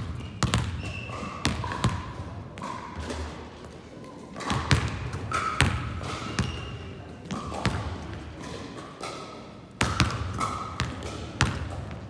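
Basketballs bouncing on a sports hall floor in irregular runs of dribbles, with sneakers squeaking briefly as the players cut and drive in a large hall.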